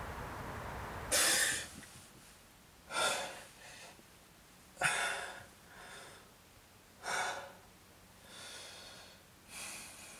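A person breathing heavily, in and out about every two seconds, with sharp loud breaths alternating with softer ones. A steady background hiss cuts off suddenly about a second in.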